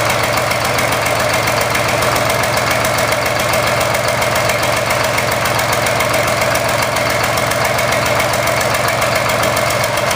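Car engine running steadily at idle with a misfire.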